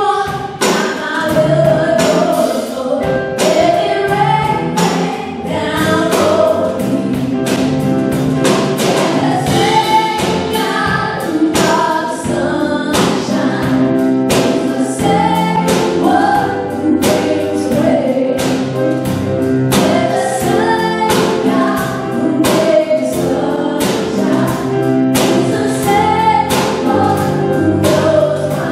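Live contemporary worship music: women singing lead with a band of keyboards, guitar and drum kit, the drums keeping a steady beat.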